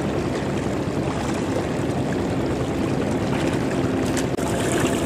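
Steady wash of floodwater with a faint engine hum from a homemade tractor hauling a sled of rice sacks through the flooded field; the hiss turns brighter about four seconds in.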